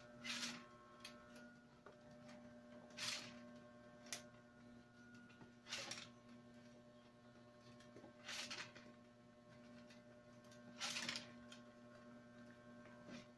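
Natural wicker strands swishing and scraping as they are drawn through the weave of a basket base: five short swishes, about one every two and a half seconds, over a steady electrical hum.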